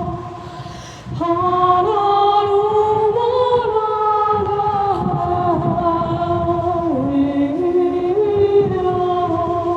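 Wordless singing in long held notes, several voice parts layered in harmony, moving slowly up and down in steps; it swells back in about a second in after a brief dip.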